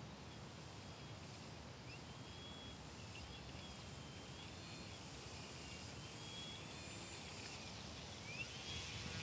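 Faint whine of a small electric RC plane's motor, rising sharply in pitch about two seconds in and again near the end, then holding and wandering as the throttle is worked while it taxis on grass.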